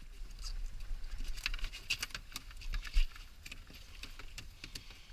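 Landing net being handled on a boat deck with a fish in it: scattered light clicks and rattles of the net's metal frame and handle, with one louder knock about three seconds in, over a low rumble.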